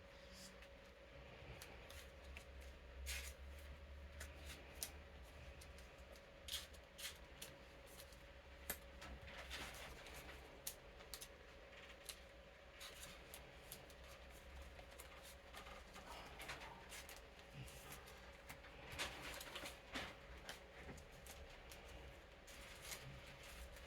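Playing cards being slid into plastic card sleeves: faint, irregular crinkly rustles and small clicks, over the steady hum of an electric fan.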